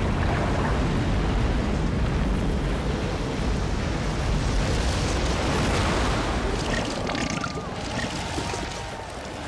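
Cartoon sound effect of a huge wave of slime surging and crashing over a hill: a loud, rushing wash with a deep rumble, like heavy surf, easing off in the last couple of seconds.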